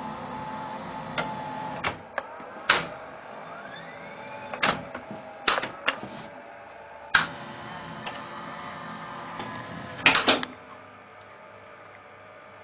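Sony VO-7630 low-band U-matic videocassette recorder working its tape transport: sharp clicks and clunks of its buttons and mechanism through the first ten seconds, over a steady motor whine. A rising whine comes about three and a half seconds in, and the machine goes quieter after about ten and a half seconds.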